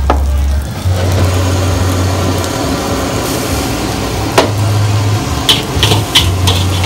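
Wok burner running under a wok of fried rice with a steady low rumble and a faint sizzle. Several sharp clinks come in the second half.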